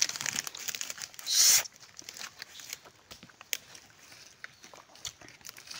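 A person eating raw tamilok (shipworm) with rice by hand. There is a short, loud, hissing suck about a second in, then faint wet chewing and lip-smacking clicks.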